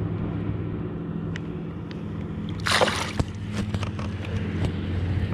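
Water sloshing against the side of a kayak, with one loud splash about three seconds in as a caught bass is let go over the side. A steady low hum and a few sharp clicks run underneath.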